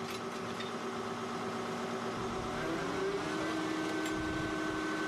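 Diesel engine running steadily, its speed rising a little about two and a half seconds in and then holding at the higher speed.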